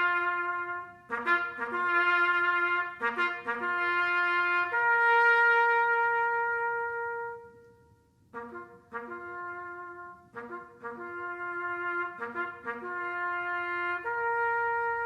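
Solo trumpet playing a bugle call: phrases of quick short notes leading into longer held notes on a handful of pitches, with short breaks between phrases.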